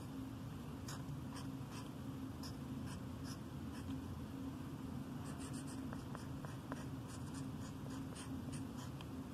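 Felt-tip marker writing on the bare wood of a turned bowl's foot: many short scratchy strokes, over a steady low hum.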